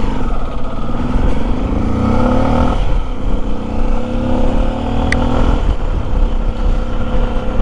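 Honda Tornado's single-cylinder engine pulling the motorcycle along a dirt road, with wind and road rumble. Its pitch climbs, then drops back at a gear change about three seconds in, climbs again and drops at another change at about five and a half seconds. A single sharp click just past five seconds.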